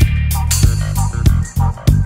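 Dub reggae music: a deep bass line and guitar over a steady drum beat, with hits about three times a second.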